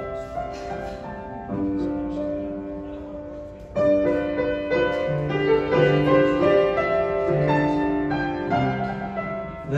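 Piano played solo: a slow passage of held chords under a melody, getting louder about four seconds in.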